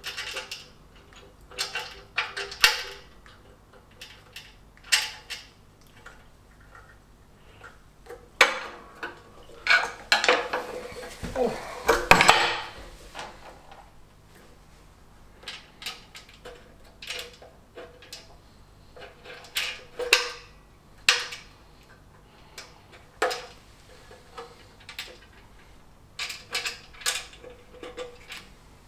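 Metal hand tools clinking and clicking on the bolts and brackets of a Fiat 500 engine, in short irregular bursts, as the bolts are loosened to ease the fan belt on. A longer, louder clatter comes about ten seconds in.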